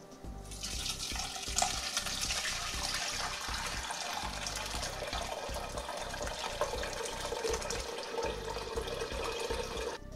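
Fermented blackberry and rhubarb must poured from a bucket into a muslin straining cloth: the liquid and fruit pulp splash and run through it steadily. The pouring starts about half a second in and stops just before the end.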